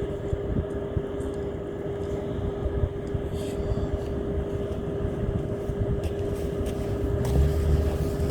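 An engine running steadily: a constant hum over rumbling noise, with the low rumble growing louder near the end and a few faint ticks.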